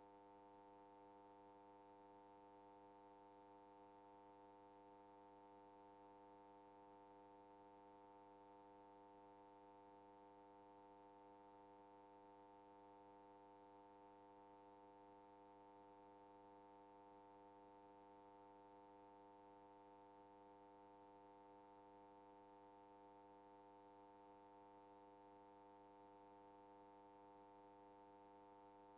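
Near silence, with only a faint, steady, unchanging hum made of several tones.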